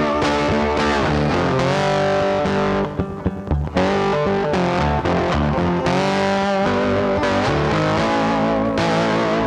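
Background music: a rock track led by distorted electric guitar over bass, with a brief break about three seconds in.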